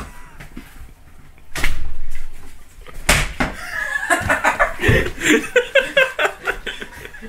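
A loud rustle of handling noise, then a single sharp knock about three seconds in, followed by a few seconds of quick, choppy laughter.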